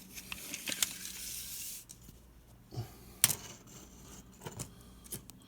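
Steel tape measure being pulled out across a board with a hissing rattle for the first couple of seconds, among small clicks and knocks, then a single sharp click a little after three seconds in.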